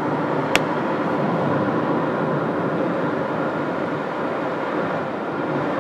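Steady road and wind noise of a car moving at speed on an expressway, heard from inside the cabin, with one sharp click about half a second in.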